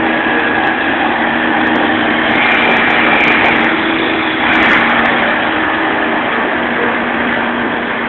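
Massey Ferguson combine harvester's engine running steadily with a constant hum as its front drive wheel spins in deep mud.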